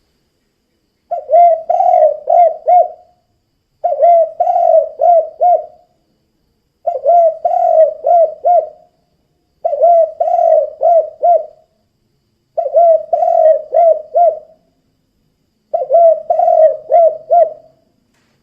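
Spotted dove (tekukur) singing its 'kuk 2' song: six phrases of four or five low coos each, repeated about every three seconds.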